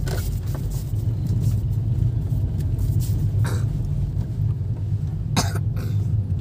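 Hyundai Grand i10 Nios driving, its engine and road noise a steady low rumble heard inside the cabin as the car pulls away with the clutch being let out. A few short knocks sound over it; the loudest comes about five seconds in.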